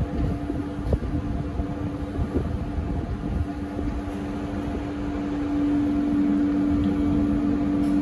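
A steady mechanical hum over a low rumble, growing a little louder about halfway through.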